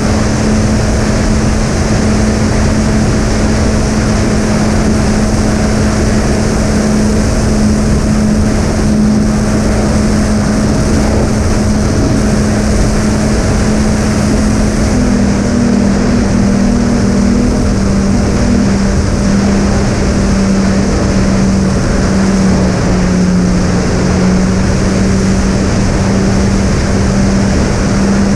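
Twin brushless electric motors spinning three-blade 7-inch propellers on a fixed-wing model plane, holding a steady droning pitch over a constant rush of wind. About halfway through, the two motors drift slightly apart in pitch, and a little later the pitch dips slightly.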